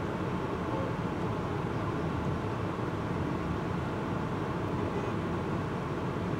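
Steady city street traffic noise from cars passing and idling.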